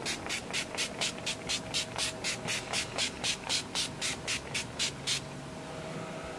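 Urban Decay setting-spray pump bottle misting the face in rapid strokes, short hissing sprays about four a second, stopping about five seconds in.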